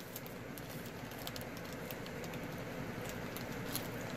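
Small metal double cap rivet parts clicking lightly against each other and a plastic bag as they are picked out by hand: a scatter of irregular light ticks.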